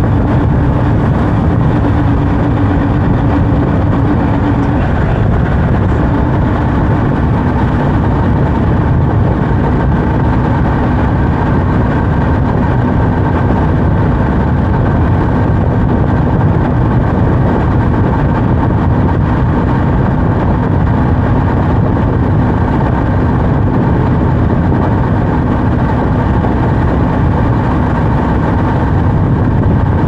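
Kawasaki Z H2 motorcycle's supercharged inline-four engine running under way at steady revs, the pitch dropping a little about five seconds in and then holding.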